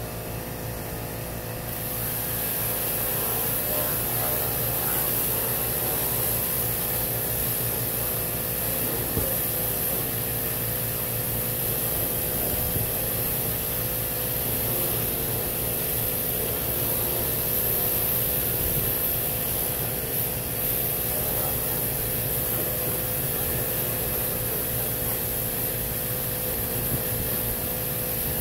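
Worx Hydroshot cordless pressure washer spraying water to rinse an engine bay: a steady hiss that starts about two seconds in, over a constant machine hum.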